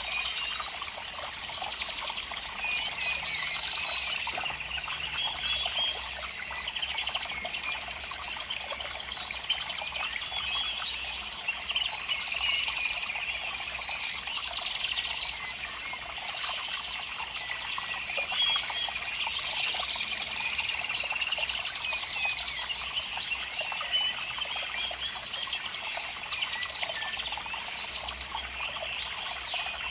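Many small birds chirping and singing together: high, rapid trills that come again and again in phrases of a second or two, overlapping without a break.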